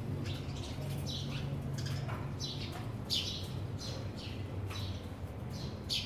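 Sparrows chirping: a loose series of short, high chirps, the loudest about three seconds in, over a steady low hum.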